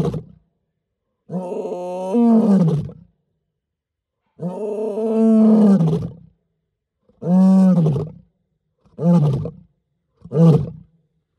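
Male lion roaring in a bout. Two long roars of about two seconds each are followed by three shorter roars that come closer and closer together.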